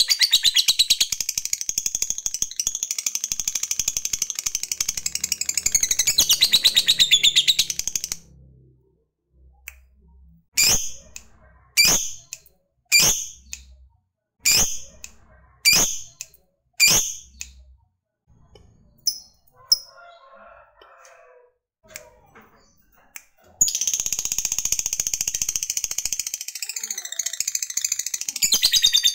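Lovebird singing a long, rapid, high-pitched chattering trill (the 'ngekek') for about eight seconds. This breaks into about six single sharp chirps spaced about a second apart, and the long chatter starts again near the end.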